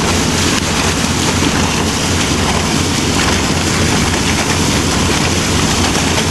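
Wind buffeting the microphone and water rushing past the hull of a sailboat under way, with a low steady engine hum underneath.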